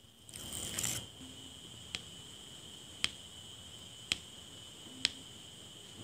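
Diamond painting drill pen pressing resin drills onto the sticky canvas, a sharp click about once a second. A brief plastic rustle comes near the start as the protective cover film is lifted.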